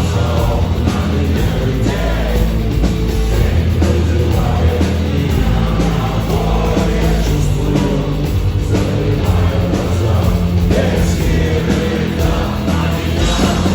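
Rock band playing loud rock music with singing.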